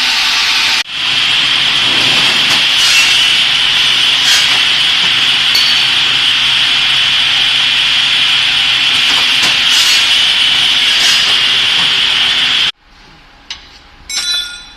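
Woodworking cross-cut saw machine sawing through wood: a loud, steady, high-pitched sawing noise that cuts off abruptly about 13 seconds in. A short metallic ring near the end.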